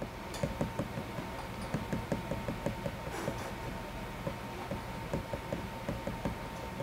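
Soft, irregular knocks or taps, about three or four a second, over a faint steady high tone.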